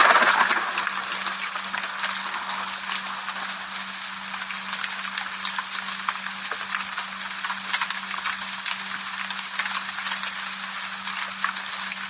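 Steady rain falling: a dense hiss with many separate drops ticking, swelling louder for a moment at the very start. A steady low hum runs underneath.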